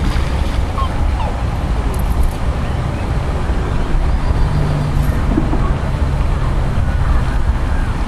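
Steady low rumble of road traffic, with a single engine hum standing out for about a second partway through.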